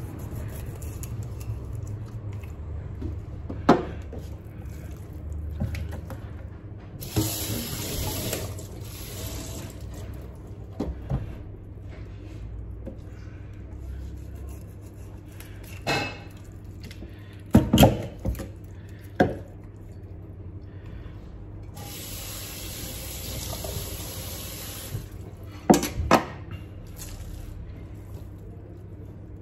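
Knife cutting a whole salmon on a plastic cutting board, with sharp knocks as the blade works around the head and through the collar bones. A tap runs into a steel sink twice, for a few seconds each time.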